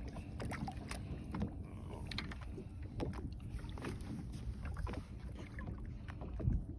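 Ambient noise aboard a small fishing boat: a steady low rumble of wind and water, with scattered light knocks and clicks.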